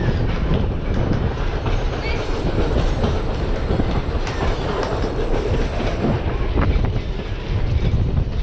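Mary Valley Rattler heritage train carriage rolling along the track, heard from aboard: a steady rumble with irregular clacks and knocks as the wheels run over the rail joints and the carriage rattles.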